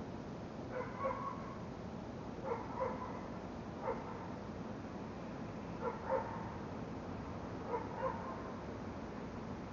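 A dog barking, single and double barks five times over about eight seconds, over a steady hiss.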